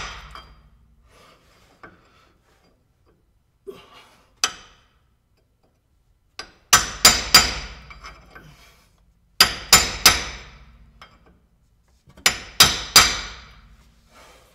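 Hammer striking a screwdriver held as a punch against the steel pinion nut and shaft, ringing metallic blows in three quick sets of three or four, with a few light taps before them. The blows etch an alignment mark on the differential's pinion nut and threads before the nut is removed.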